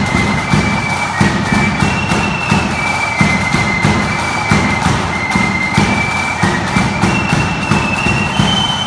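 Flute band playing: a rank of flutes carries a stepping melody that climbs near the end, over dense, steady beating from rope-tension side drums, which are the loudest part.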